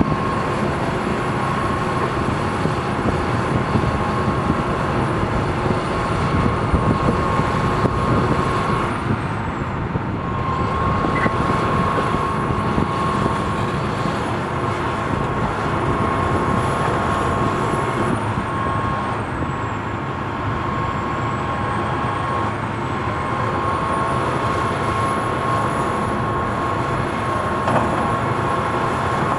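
Heavy vehicles or construction machinery with engines running steadily, a continuous rumble with a steady mid-pitched tone and a faint high whine that wavers in pitch.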